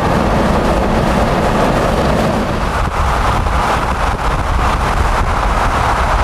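Steady road and wind noise of a vehicle driving at highway speed: a constant rumble with a rushing hiss over it.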